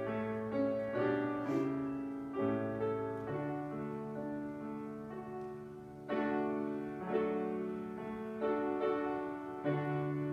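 Solo piano playing slow, quiet chords, a new chord struck every second or so and left to ring and fade.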